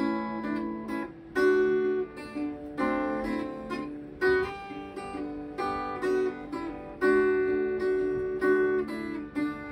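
Steel-string acoustic guitar played in chords, a fresh strum every half second to a second and a half, each chord ringing on between strokes.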